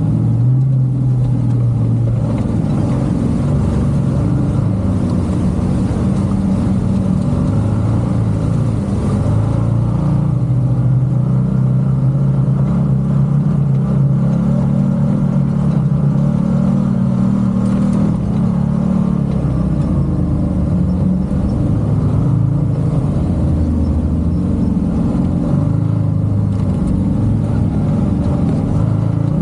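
A vehicle's engine running steadily at low revs for the whole stretch, its pitch drifting slightly up and down.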